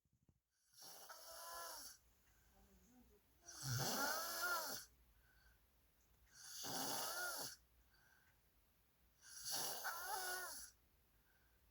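A person snoring: four drawn-out snores about three seconds apart, each with a pitched tone that bends up and down.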